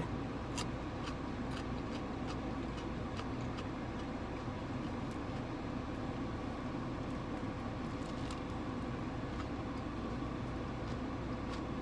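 Steady low hum of a car's interior with a faint steady tone, dotted with small scattered clicks.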